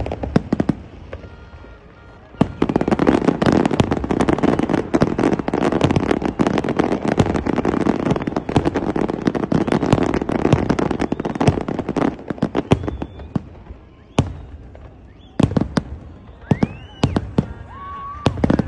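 Fireworks display: a few bangs, then from about two seconds in a dense run of rapid overlapping bangs and crackle, thinning after about twelve seconds to scattered separate bangs.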